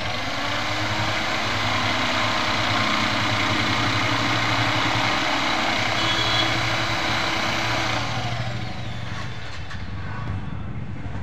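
Electric jigsaw sawing through plywood along a curved line, a steady buzzing cut with a rapid stroke rhythm. The cutting noise eases off about eight seconds in as the circle is finished.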